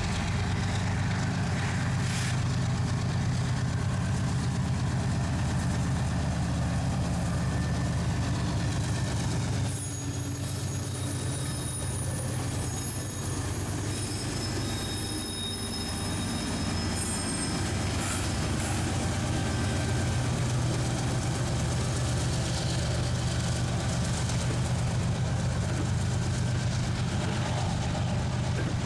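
Freight train with Union Pacific and CSX diesel locomotives passing close: a steady low diesel engine drone over the rumble of the train rolling on the rails. From about ten seconds in, thin high-pitched squealing tones come and go for several seconds.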